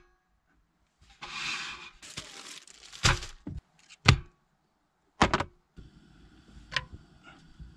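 A few separate sharp knocks and thuds, with a burst of rustling about a second in. Faint low background noise comes in near the end.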